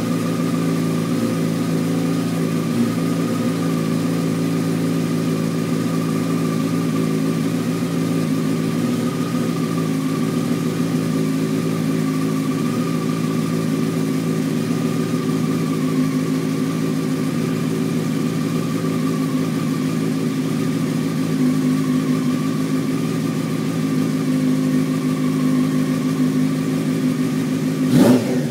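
2003 Yamaha YZF-R6's inline-four engine idling steadily through a Leo Vince carbon aftermarket exhaust, with one quick throttle blip near the end.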